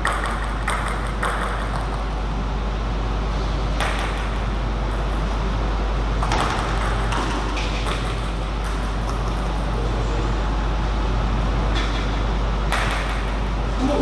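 Sharp, scattered clicks of a table tennis ball striking the table and bats, one at a time with a second or more between them, over a steady low hum.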